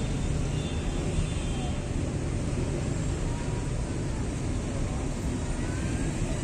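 Steady low rumble of outdoor street background noise, even in level throughout.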